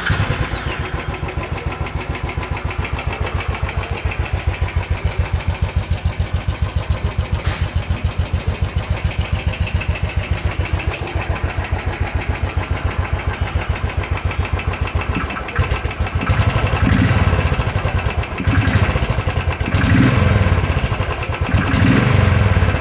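Royal Enfield Thunderbird 500's single-cylinder engine on its stock exhaust, idling with an even, pulsing beat just after starting. About two-thirds of the way in, the throttle is blipped four times, each rev rising and dropping back to idle.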